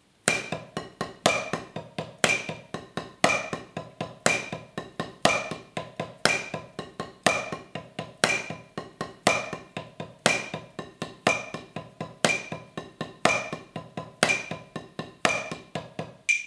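Wooden drumsticks playing the classic single paradiddle (R L R R L R L L) on a rubber practice pad as even sixteenth notes, about four strokes a second, with the first stroke of each group accented. A metronome clicks along at 60 BPM, a short high click on every beat.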